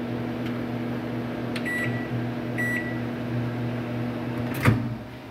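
Microwave oven running with a steady hum while defrosting frozen pastry wrappers, with two short beeps about a second apart. Near the end a sharp click as the door is opened, and the hum stops.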